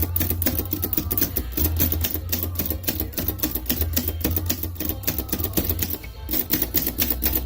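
Typewriter keys striking in a quick, steady run, about five or six keystrokes a second, with a short pause about six seconds in, over background music.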